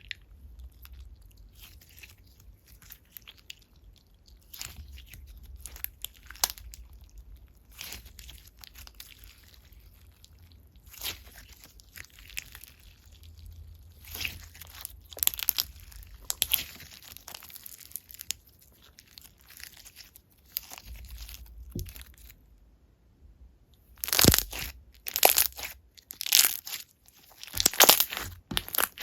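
Slime being squished and poked by hand, giving irregular crackly clicks and pops. A louder run of presses comes near the end.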